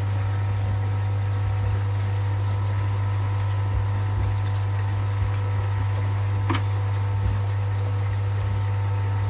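Steady low electric hum of a pump running, with a few faint clicks and a short rising squeak about six and a half seconds in.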